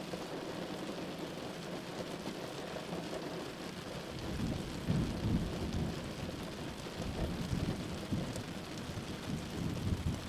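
Steady rain with thunder rumbling. The low rumbles swell in about four seconds in and peak twice, near the middle and again near the end.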